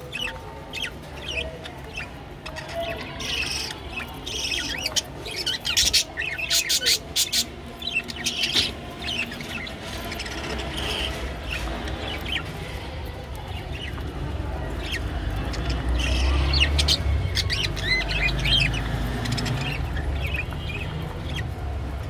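Budgerigars chirping and chattering in short, high calls, with a cluster of sharp clicks about a third of the way in and a low rumble under the second half.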